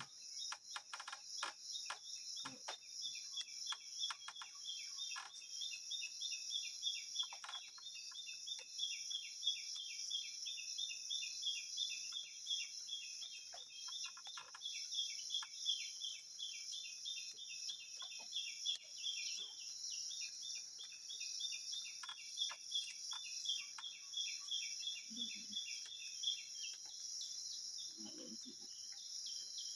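Insects: a steady high-pitched drone with a rapid run of chirps over it that fades out about two-thirds of the way through. Scattered faint clicks and knocks are heard now and then.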